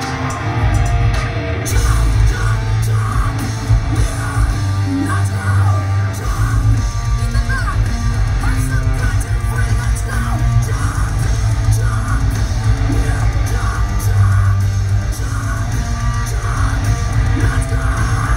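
Live metal band playing at full volume: distorted guitars, drums and vocals. The kick drum turns into a rapid, even pulse about six seconds in.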